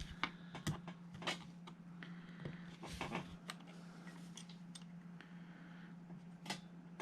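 Light irregular clicks and taps of small metal parts being handled and pushed on in a GHK G5 gas-blowback airsoft rifle's lower receiver, its fire control group pins being checked for play. A steady low hum runs underneath.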